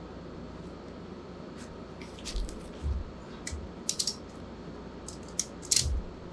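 Ratchet strap being cranked tight: a string of sharp, irregular metallic clicks from the ratchet, starting about two seconds in, with a few low knocks among them.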